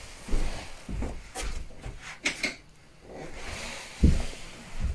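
Footsteps and scattered knocks and clicks of a person moving across a bedroom, with a louder low thump about four seconds in.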